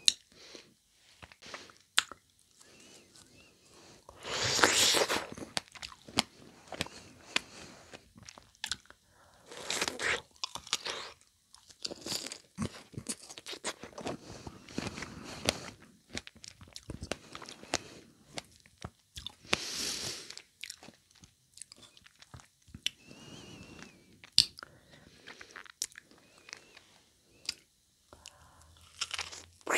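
Close-miked bites and wet chewing of fresh strawberries, with sharp mouth clicks between several louder stretches of chewing.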